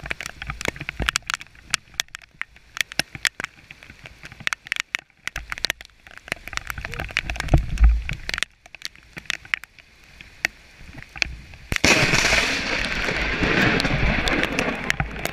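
Close lightning strike: scattered sharp crackles and clicks on the microphone, then about twelve seconds in a sudden, very loud thunderclap crack that goes on for a few seconds before fading.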